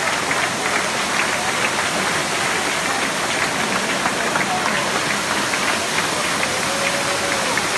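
Indoor pyrotechnic waterfall and floor spark fountains hissing steadily, with many small crackles, and people's voices underneath.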